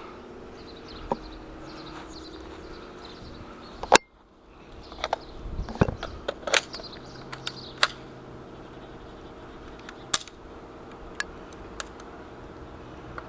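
Airsoft electric rifle (E&C MK18 AEG) firing single shots at an irregular pace: about a dozen sharp snaps, the loudest about four seconds in, most of them between about five and eight seconds.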